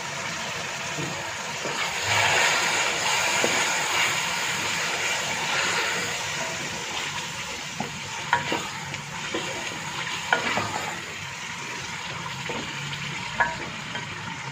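Minced meat in hot oil sizzling as water is poured into the pot, louder in the first half, so the keema can soften. Later a wooden spatula stirs it, with scattered sharp taps against the pot.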